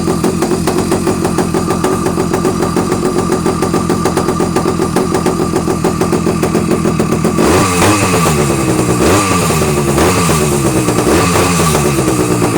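Avenger 85 motorbike engine idling steadily, then revved in about four quick throttle blips about seven seconds in, each revving up and falling back toward idle.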